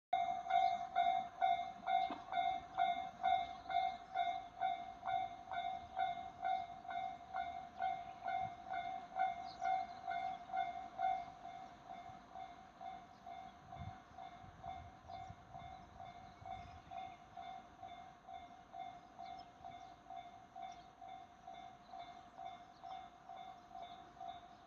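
Japanese level-crossing warning bell ringing steadily at about two strikes a second. About eleven seconds in it turns quieter and thinner, as crossing bells are turned down once the barriers are lowered.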